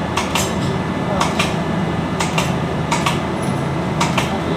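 Metal tools and turbocharger parts clinking and tapping against each other during the overhaul, sharp knocks coming about once a second, often in quick pairs, over a steady low hum.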